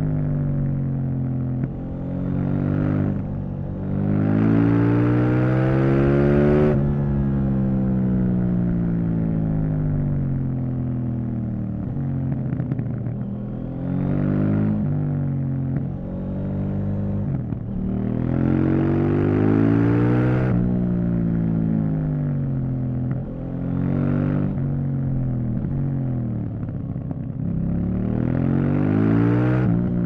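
KTM 790 Duke's parallel-twin engine on the move, its revs climbing in several hard pulls and falling away in between, with a sharp drop in pitch after the strongest pulls, about a quarter and two-thirds of the way through.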